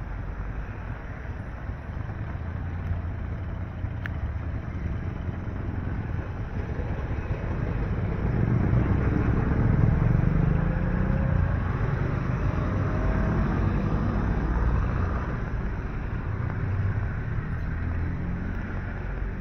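Traffic on a wet street: motor vehicles passing with tyre hiss on the wet road, swelling about halfway through as a motorcycle goes by close.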